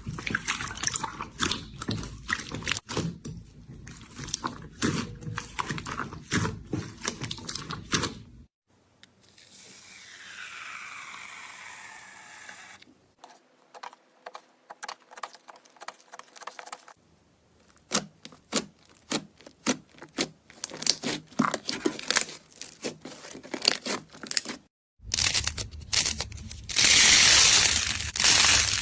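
Slime being handled by hand, squeezed and poked in several short clips: quick runs of sticky clicks and pops, with a smoother stretch of crackling partway through and a louder crunchy stretch near the end.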